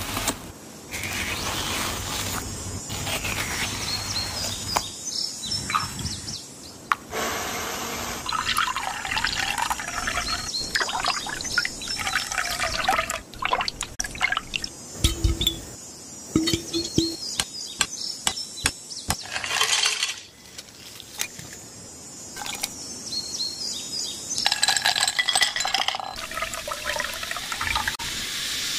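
A run of close-up food-preparation sounds: a melon baller scooping crisp watermelon flesh, liquid pouring and splashing into moulds and a glass bucket, and many small clicks and knocks of plastic and glass. A few short wavering pitched sounds come in now and then.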